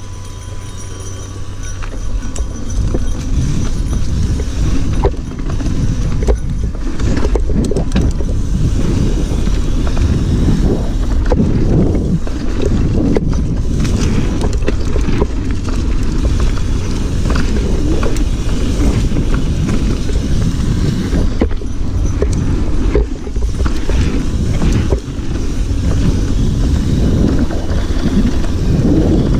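Mountain bike riding fast on a dirt singletrack: a steady low rumble of the tyres on the trail and air rushing past, with frequent knocks and rattles from the bike over bumps.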